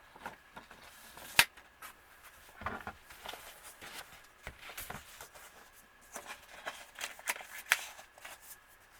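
Paper and cardboard rustling and sliding, with scattered sharp clicks and taps; the loudest click comes about a second and a half in and another near the end. A vinyl record's paper insert, inner sleeve and album jacket are being handled to pull the record out.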